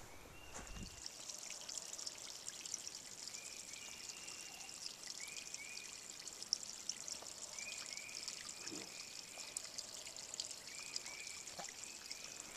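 Shallow rocky creek trickling, a steady fine crackling hiss of running water. Runs of short high chirps, likely a bird calling, come in several times.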